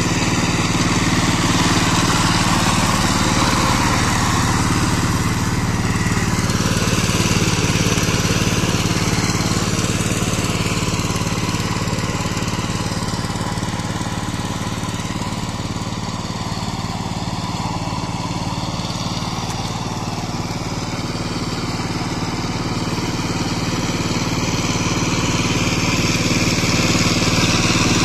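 Power tiller's single-cylinder diesel engine running steadily under load as its rotavator churns flooded paddy mud. It fades a little midway and grows louder near the end as the tiller comes close.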